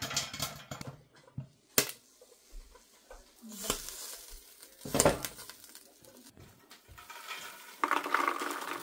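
A few sharp knocks from a steel pot and its lid, then popped popcorn tumbling out of the pot into a plastic bowl near the end.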